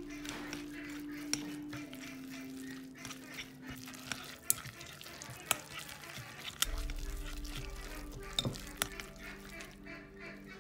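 Chopsticks stirring a wet mixture of raw fish, onion, herbs and egg in a glass bowl, with frequent sharp clicks as the chopsticks strike the glass. Soft background music with slow held notes plays underneath.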